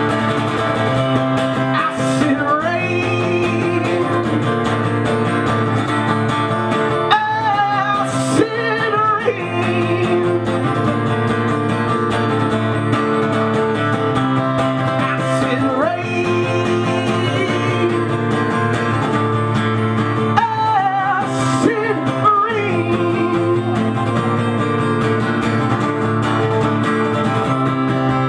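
Live solo acoustic guitar strummed steadily, with short sung phrases coming in a few times over the strumming.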